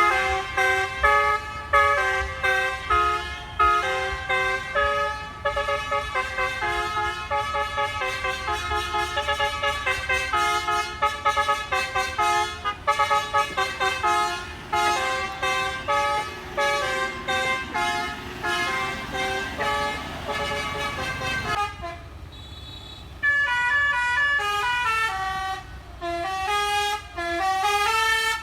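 Bus 'telolet basuri' multi-tone musical air horn playing a fast melody of short stepped notes. The tune breaks off about 22 seconds in, and a new run of notes starts a second or so later.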